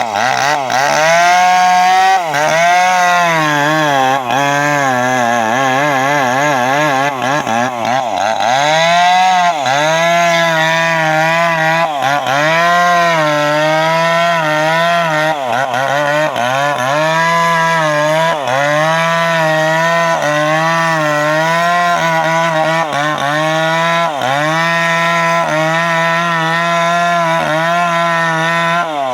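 Two-stroke chainsaw running at high revs, cutting teak wood; its engine pitch sags and recovers again and again as the chain loads up in the cut.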